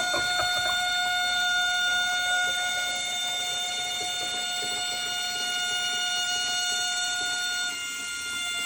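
Deer Valley smart toilet giving off a steady high-pitched whistle while flushing, with water running in the bowl at first. The whistle holds one pitch throughout and dips slightly in loudness near the end.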